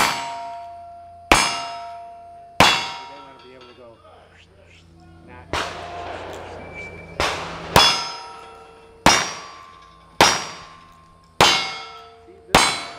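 A string of single-action revolver shots about a second apart, each followed at once by the ringing of a hit steel target. About nine shots, with a pause of around three seconds after the third.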